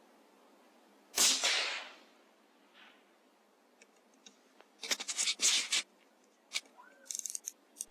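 A single shot from a CZ457 bolt-action rifle in .17 HMR: one sharp crack about a second in, fading over nearly a second. Some seconds later comes a run of short rustles and clicks.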